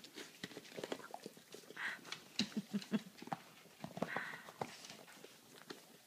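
A dog licking cottage cheese out of a plastic tub: a fast, irregular run of wet licks, clicks and smacks.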